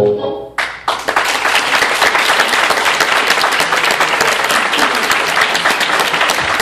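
The last notes of a tango song end, and about a second in the audience bursts into applause, steady clapping from many hands that keeps going.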